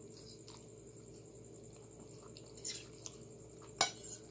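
Quiet chewing and slurping of creamy spaghetti, then a metal fork scraping and clinking on a ceramic plate, with one sharp clink near the end, over a steady low hum.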